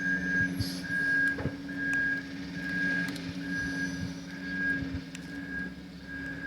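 A truck's reversing alarm beeping steadily, a little faster than once a second, over the low running of a diesel engine, with a few faint knocks.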